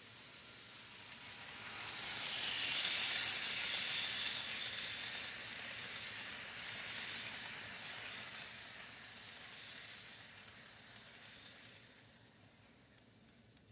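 Model train of a Santa Fe Blue Goose streamlined locomotive and passenger cars running on its track: a rushing running noise that swells about two seconds in and slowly fades as the train moves away.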